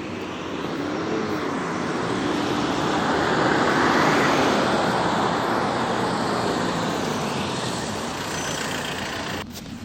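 Nizhegorodets-222709 minibus on a Ford Transit base in motion, heard from inside the cabin: engine and road noise swelling to a peak about four seconds in, then easing off. The noise drops suddenly near the end.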